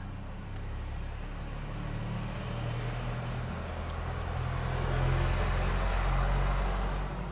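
A motor vehicle engine running nearby, a low steady hum that grows louder toward a peak about five seconds in and eases off near the end, like a vehicle passing slowly.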